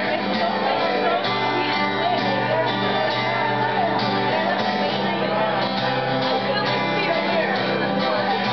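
Acoustic guitar strummed in a steady rhythm, played live.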